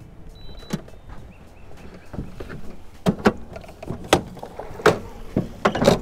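Electric trolling motor being handled at the boat's bow: a thin whine briefly near the start, then a run of sharp knocks and clunks from about three seconds in, loudest near the end.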